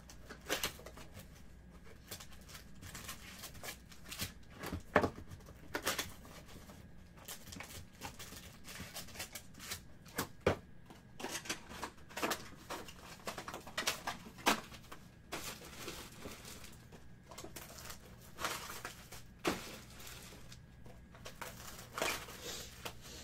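Topps Finest baseball card box and packs being opened and handled by hand: irregular crinkling and tearing of pack wrappers and cardboard, with scattered sharp clicks and rustles.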